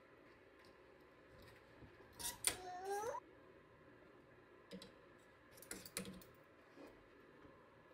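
Light scattered clicks and taps of clothes hangers and plastic storage boxes being handled, with a short rising squeak about two and a half seconds in.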